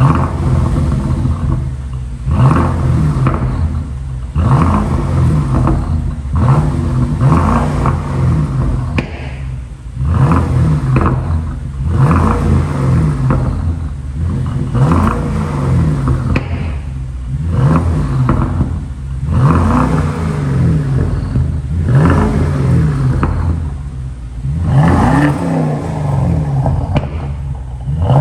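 BMW X6 exhaust through a GES Performance racing exhaust with race downpipe and straight pipe. The engine is held at idle and blipped repeatedly, about a dozen quick revs roughly two seconds apart, each rising in pitch and falling back.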